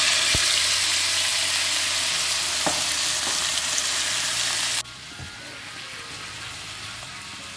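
Marinated chicken tikka pieces sizzling loudly as they land in hot oil in a frying pan, with a couple of faint knocks. A little under five seconds in, the sizzle drops suddenly to a softer, steady frying as the pieces are stirred with a spatula.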